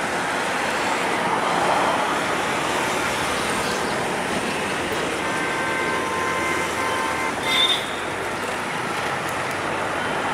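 Diesel locomotive engine running hard under acceleration as the train comes closer, a steady noise throughout. A faint horn chord is held for about two seconds past the middle, followed by a brief sharp sound.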